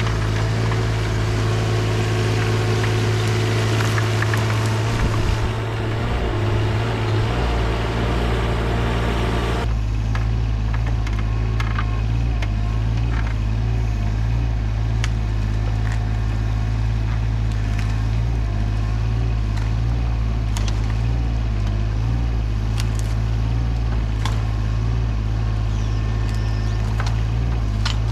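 Yanmar SV17ex mini excavator's three-cylinder diesel engine running steadily under work. It is busier and noisier for the first ten seconds or so, then settles, with scattered sharp clicks and knocks over the engine.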